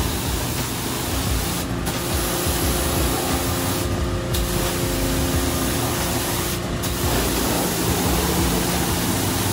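High-pressure water spray from a self-service car wash wand, a steady loud hiss that briefly lets up three times, with a low machine hum underneath.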